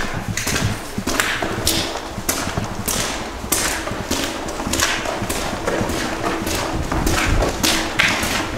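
Footsteps walking along the gritty floor of a brick-vaulted tunnel, an even pace of about two steps a second.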